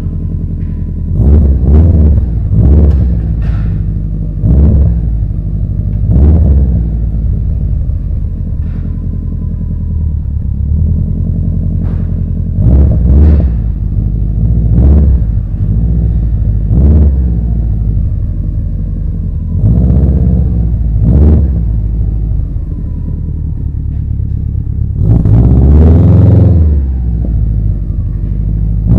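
Subaru Impreza GB270's flat-four engine idling through a custom 3-inch exhaust, blipped up in short revs about ten times, with one longer, higher rev near the end.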